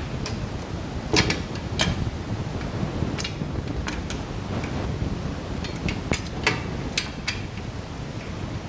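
Scattered small clicks and taps of a bolt, washer and nut being fitted and handled on a computer-mount bracket, over a steady low background hum.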